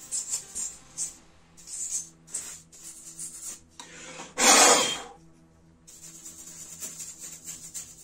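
Brush bristles scrubbing dust off the inside of a plastic laptop bottom cover, in a quick series of short, scratchy strokes. About halfway through there is one louder rush of noise, lasting about half a second. Faint background music plays underneath.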